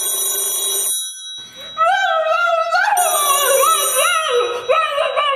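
A telephone bell ringing: one ring, then a second about two seconds later. A high voice sings in gliding notes over it from about two seconds in.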